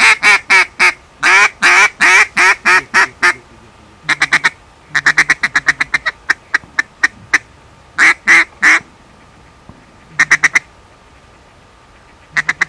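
Mouth-blown duck call sounding runs of loud duck quacks. A hunter is calling ducks in. The runs come in bursts with short pauses between, and a faster string of short notes in the middle.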